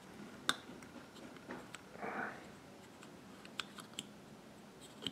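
Faint clicks and taps of small metal carburetor parts being handled as a fuel pump cover is seated on a Walbro WF-7 carburetor body. There is a sharp click about half a second in, then a few lighter ticks.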